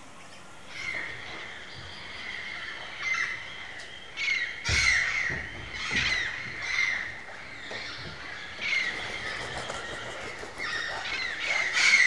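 Wood-rails calling: loud call notes repeated in bouts, several overlapping, starting about a second in. There is a single low thump a little before the middle.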